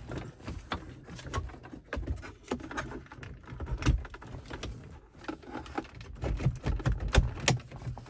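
Irregular clicks, knocks and rustling of wiring and plastic dashboard parts being handled and pushed into place by hand.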